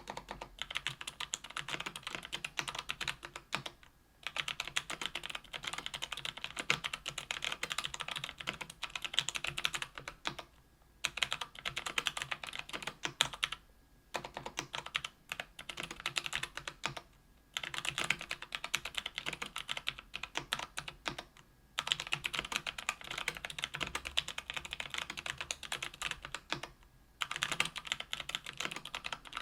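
Typing on a KBDfans Tofu 65% aluminium keyboard with lubed Kailh BOX Brown tactile switches on an aluminium plate: fast, dense runs of keystrokes broken by short pauses every few seconds.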